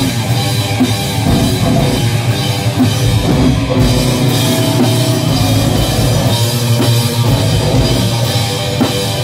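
Groove metal band playing live, loud and dense: distorted electric guitars and bass over a Tama drum kit with steady, repeated drum hits.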